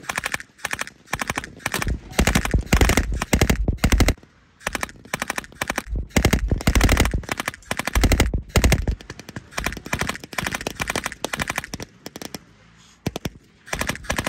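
Blank-firing machine guns rattling off rapid bursts of automatic fire, one burst after another, with brief lulls about four seconds in and again near the end.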